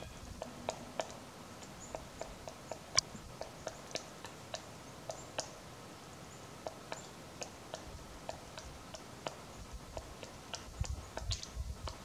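Pileated woodpecker excavating into a tree trunk while foraging: single sharp knocks of its bill on the wood, irregular, about two a second, with a pause of about a second midway.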